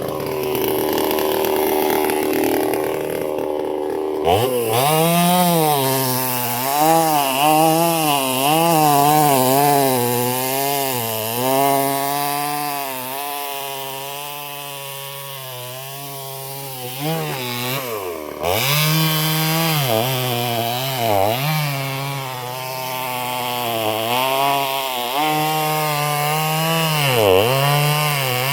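Chainsaw cutting into wood, its engine running steadily at first, then, from about four seconds in, its pitch wavering up and down as the chain works through the cut. The pitch drops away briefly about two-thirds of the way through.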